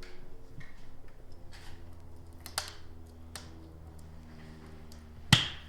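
Irregular sharp clicks and ticks from a windshield cutout tool as fiber line is cranked in, sawing through the windshield's urethane adhesive, with one loud click near the end.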